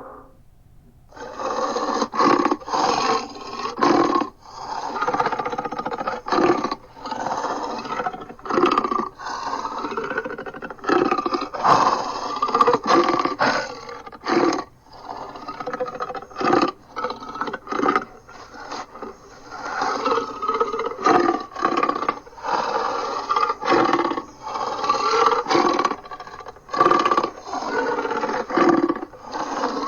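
Titanus Behemoth monster vocalization sound effect: a run of long, growling pitched calls, one after another, broken by short cuts. There is a brief pause about the first second.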